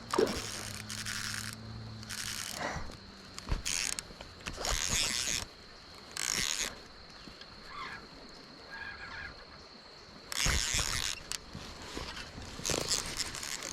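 Fishing reel worked in about six short spells of cranking and drag clicking while a hooked smallmouth bass is fought in.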